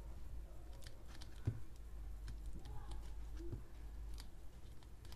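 Soft scattered clicks and rubbing from hands working a rubber 1/10 short-course RC tyre on its plastic wheel while superglue is applied, with a small knock about one and a half seconds in, over a faint low hum.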